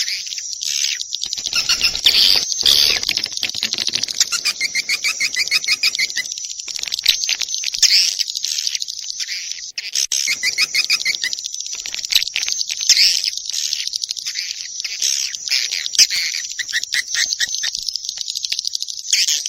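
Recorded swiftlet lure call: dense, continuous high twittering and chirping of swiftlets, with runs of fast buzzing trills several times. It is a commercial call track played in swiftlet houses to attract the birds.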